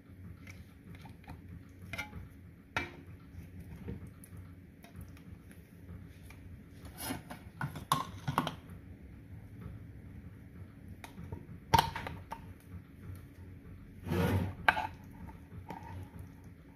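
A stainless steel spatula scraping and clinking against a glass baking dish while cutting and lifting out cinnamon rolls. The sound comes as scattered light scrapes and taps, with a sharp clink about twelve seconds in and a longer scrape about two seconds before the end.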